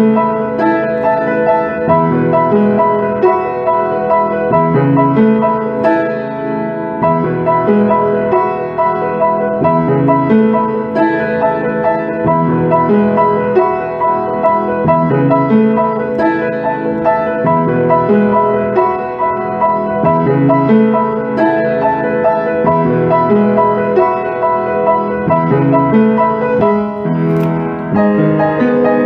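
Background music led by piano, with notes changing at a steady, even pace.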